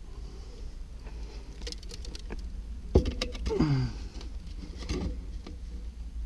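Gloved hands handling soil and black ABS sewer pipe in a trench: scraping and rustling with scattered clicks. About three seconds in there is a sharp knock, followed by a short falling tone.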